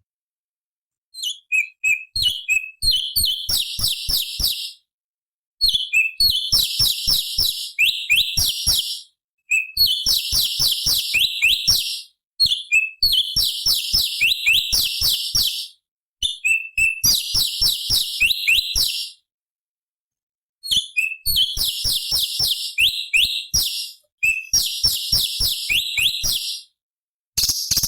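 Orange-bellied leafbird (cucak cungkok) singing: repeated phrases of rapid, high, densely packed notes, each a few seconds long, broken by short silences.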